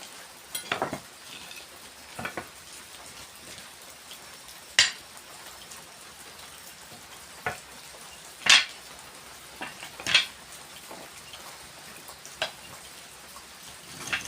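Sharp metal-on-metal clinks and taps, about eight at irregular intervals, some ringing briefly, from metal tools and a blade being struck or handled in blacksmith work.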